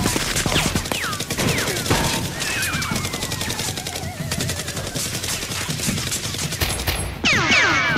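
Dubbed-in gunfire sound effects: a rapid, continuous volley of shots with a few short falling whistles among them. Near the end a louder, repeating pattern of falling swoops comes in.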